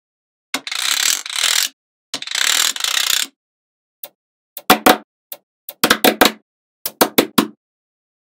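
Small magnetic balls clicking and rattling: two continuous rattles of about a second each, then a string of sharp clicks, single and in quick clusters, as balls snap together.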